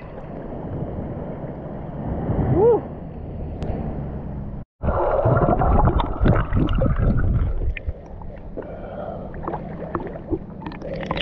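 Seawater sloshing and rushing around an action camera held at the surface, with a short hum-like voice sound about two and a half seconds in. After a brief break in the sound about halfway through, the camera is underwater: muffled churning and bubbling with knocks and splashes against the housing, settling into softer lapping near the end as it returns to the waterline.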